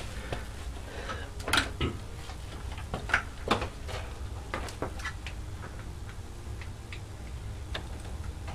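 Scattered sharp clicks and light knocks of test equipment and leads being handled on a workbench, the loudest in the first four seconds, over a steady low hum.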